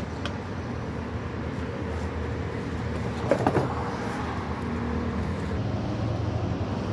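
Steady low rumbling background noise. A short cluster of sharp clinks with brief ringing comes about three and a half seconds in.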